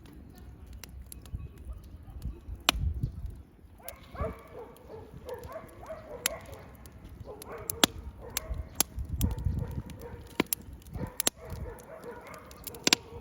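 Bonfire crackling, with sharp irregular pops all the way through.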